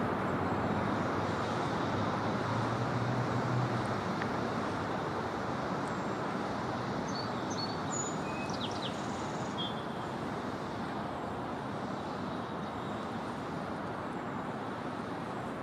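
Steady outdoor rushing noise, with a brief low hum about three seconds in and a few short, high bird chirps between about six and ten seconds in.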